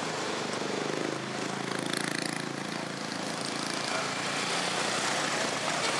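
Street traffic with a small motorcycle engine running close by, its steady engine note clearest over the first few seconds, over a constant traffic hiss.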